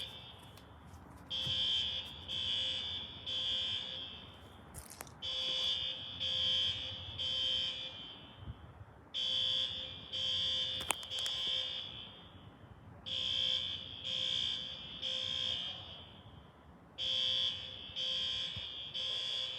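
Fire alarm beeping in groups of three high beeps, one group about every four seconds: the temporal-three pattern that signals an alarm. A couple of sharp clicks fall between the groups.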